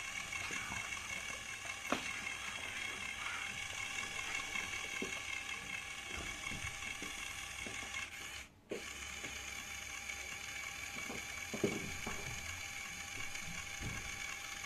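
LEGO WeDo 2.0 motor running steadily, driving the excavator's plastic gears in a whirring whine; it cuts out briefly about eight and a half seconds in, then runs on.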